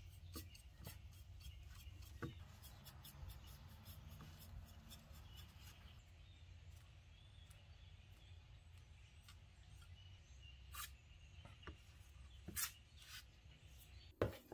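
Faint dabbing and rubbing of a brush on wooden strips as a dark finish is stippled on, over a low steady hum. A few light knocks near the end as the wooden strips are handled, the loudest just before it ends.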